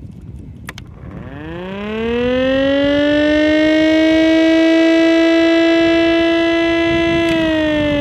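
A 3D-printed scale model of a Chrysler air raid siren spins up after a few light clicks, its wail rising in pitch and then holding steady. Near the end a click is heard and the pitch starts slowly sliding down as the rotor winds down.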